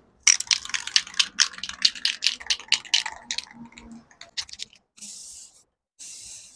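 Aerosol spray-paint can being shaken: its mixing ball rattles in a fast clicking run, about five a second, for roughly four seconds. Then come two short hisses of spray as the paint goes onto the fork.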